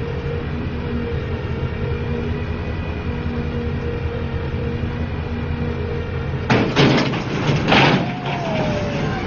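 Boom truck's engine running steadily. About six and a half seconds in, its crane boom comes down with a loud crash and clatter, and a second crash follows about a second later.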